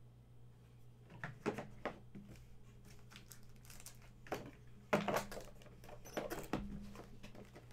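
Trading-card packaging being handled and opened: a few short crinkles and taps, loudest about five seconds in, over a steady low electrical hum.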